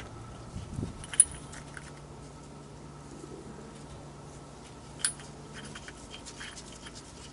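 Metal hand tools clinking as a pulley holder tool is fitted to the pinion yoke: a few sharp metallic clinks, the loudest about a second in and another about five seconds in, with lighter clicks between, over a faint steady hum.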